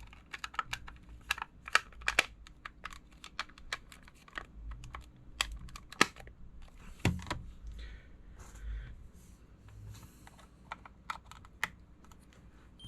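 Irregular run of small, sharp clicks and taps from unplugging and handling a phone battery and its connector cable on a workbench.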